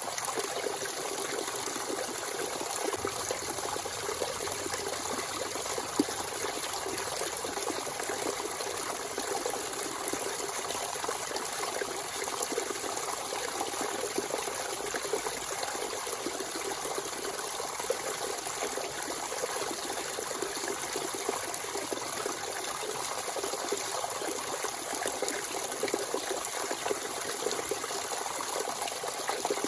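Natural spring water flowing freely in a steady, unbroken stream, with one brief click about six seconds in.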